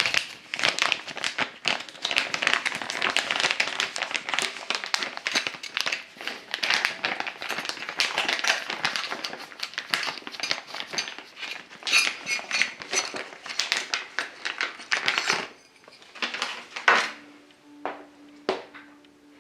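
Small metal parts and a spray gun being handled: dense clinking, rattling and crinkling that thins out about sixteen seconds in to a few separate clicks, with a faint steady hum starting near the end.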